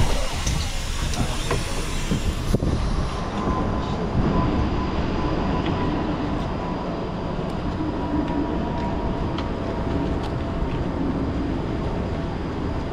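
Steady loud rumble of airport apron noise from parked aircraft and ground vehicles, with a faint steady whine through the middle and a sharp click at the very start.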